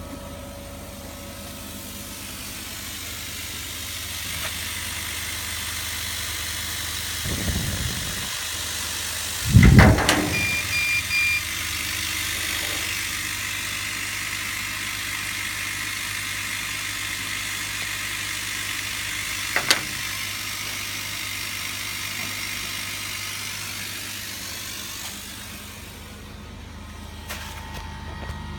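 Laser cutting machine running: a steady rushing hiss of moving air over a low hum. Two heavy thumps come about seven and ten seconds in, the second the loudest, and a sharp click comes about twenty seconds in.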